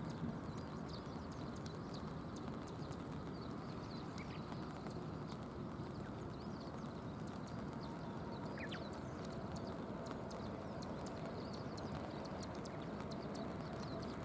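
Steady rush of rain and river water, with scattered faint high ticks and chirps throughout and two short rising chirps, about 4 and 9 seconds in.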